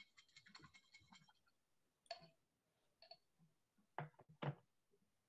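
Near silence with faint scattered clicks: a quick run of small ticks in the first second and a half, then a few single clicks, the two loudest near the end.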